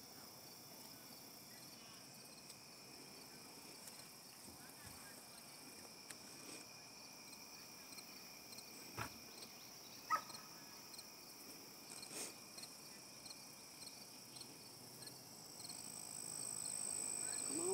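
Faint evening insect chorus, crickets among them: steady high-pitched trilling with regular pulsed chirps. A few faint clicks sound partway through, and a higher steady note joins near the end.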